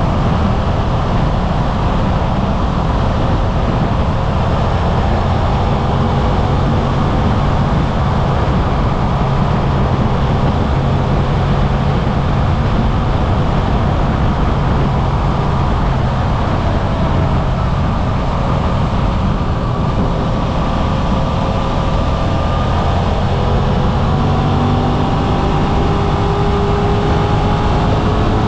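Suzuki V-Strom 800RE's 776 cc parallel-twin engine running steadily under way, picked up close by a cockpit-mounted action camera, with road and wind noise. Its pitch rises gently near the end.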